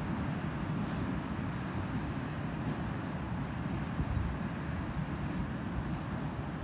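SNCB HLD diesel locomotive 7835 heard from a distance as it draws its train away: a steady, uneven low rumble with a hiss above it, and no clear engine note.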